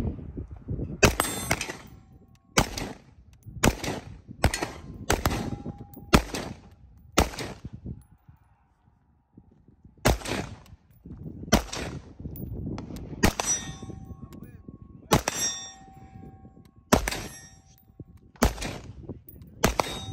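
A ZEV AR-15 Core Elite rifle in 5.56x45 fires about fifteen single aimed shots, one every second or two, with a pause of a couple of seconds midway. After several shots a steel target rings, showing a hit.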